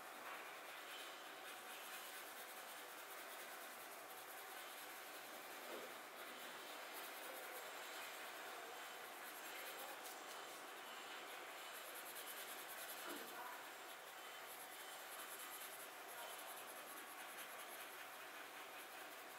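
Colored pencil shading on paper: a faint, steady scratching.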